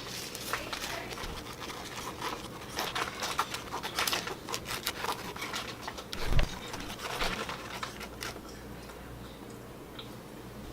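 A small plastic spoon stirring and scraping in a plastic tray, mixing the DIY candy kit's powder with water into cream: a run of light clicks and scrapes, with one dull thump about six seconds in.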